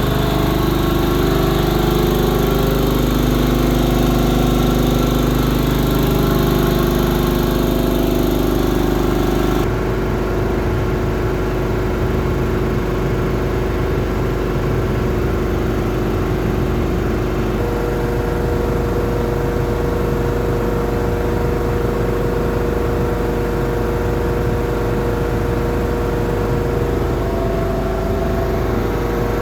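Hatlapa V200 marine air compressor running steadily on a test bench. About ten seconds in, a high hiss over the running stops abruptly and the machine carries on a little quieter.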